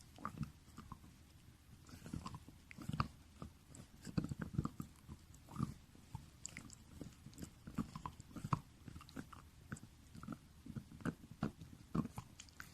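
French bulldog gnawing a marrow-bone dental chew toy: irregular crunching bites, with sharp clicks of teeth on the hard toy and soft low thumps.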